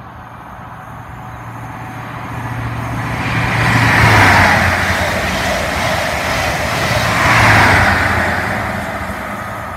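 East Midlands Railway High Speed Train with Class 43 diesel power cars running through the station at speed without stopping. Engine note and wheel-on-rail noise build up, peak about four seconds in and again at about seven and a half seconds as each power car passes, then fade.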